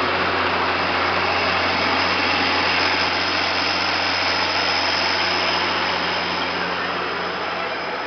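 Allis-Chalmers 7000 tractor's straight-piped diesel engine running steadily under light load pulling a grain drill, heard from inside the cab as a loud, even drone.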